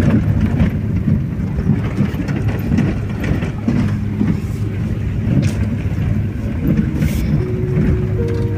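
Car driving slowly over a rough dirt road, heard from inside the cabin: a steady low rumble of engine and tyres, with a few sharp knocks from bumps in the road.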